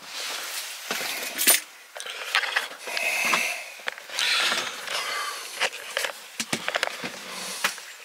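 Handling noise from a handheld camera being moved about: rustling with scattered sharp clicks and knocks.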